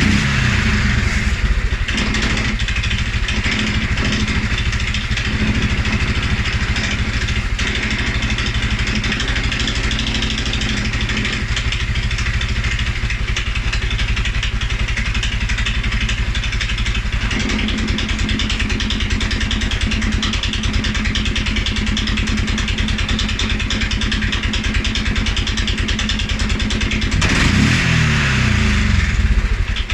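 2011 Polaris Sportsman 550 XP ATV's single-cylinder fuel-injected engine idling, with the revs falling back to idle right at the start and one brief rev and drop back down near the end; the idle note shifts about halfway through. This is the low, rough idle after revving that the owner is chasing, although the fuel pressure and the EFI sensors check out.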